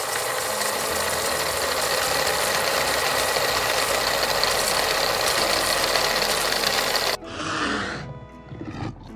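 Quiz countdown sound effect: a fast, steady rattle that runs for about seven seconds and cuts off suddenly, followed by a short, different sound as the answer is revealed.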